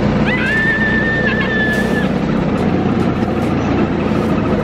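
Wind rushing over the microphone and a motorbike engine running during a ride. A high, held squeal sounds for about two seconds near the start.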